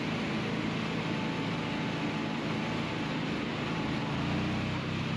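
Vehicle engine running steadily, a low even drone.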